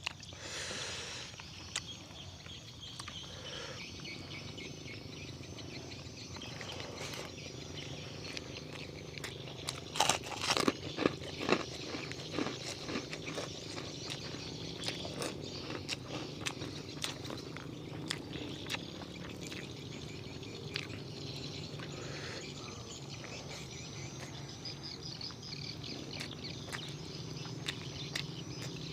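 Close-up eating sounds: chewing and crunching fried chicken in short clicks, with a louder cluster of bites about ten seconds in. Behind it, a steady open-air rice-field ambience with faint high chirping.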